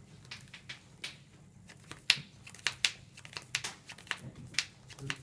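Sleeved trading cards being handled and set down on a playmat: a run of irregular sharp clicks and taps, the loudest about two seconds in.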